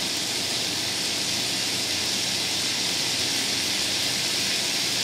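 Diced vegetables (onion, peppers, zucchini and yellow squash) sizzling steadily in olive oil in a sauté pan.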